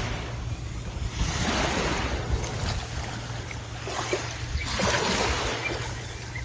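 Wind rumbling on the microphone outdoors, with two swells of rushing noise.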